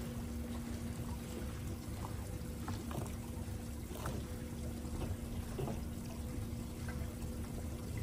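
Water lapping and trickling against a fishing boat's hull, with a few small splashes, over a steady low hum and rumble.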